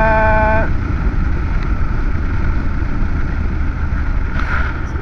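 Steady wind rush over a helmet's built-in microphone, over the running parallel-twin engine of a Triumph Street Scrambler riding a dirt road. A drawn-out shouted call, held on one pitch, ends about half a second in.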